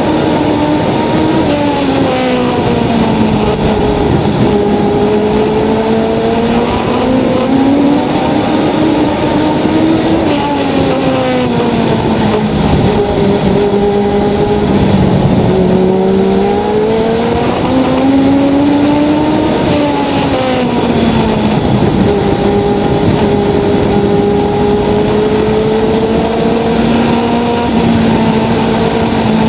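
On-board sound of a Legend car's Yamaha 1200 cc four-cylinder motorcycle engine at racing speed, its pitch rising as it accelerates and falling as it lifts, over and over every few seconds through the laps.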